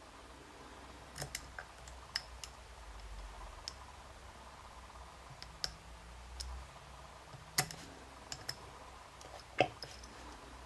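Small metal clicks from a dimple pick and tension tool working the pins inside an Abus D10 dimple lock cylinder. There are a dozen or so at uneven intervals, with two sharper ones in the second half.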